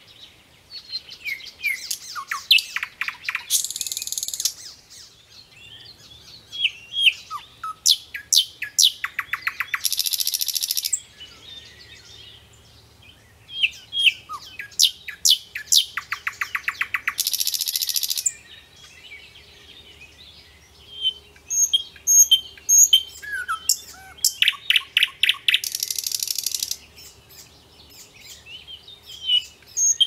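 Common nightingale singing in four separate phrases a few seconds apart. Each phrase goes from varied whistles and chirps into a fast run of repeated notes and ends in a dense, harsh buzz.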